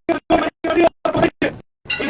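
Crowd voices, chopped into short choppy pieces by repeated dropouts to dead silence, several times a second, with a longer silent gap near the end.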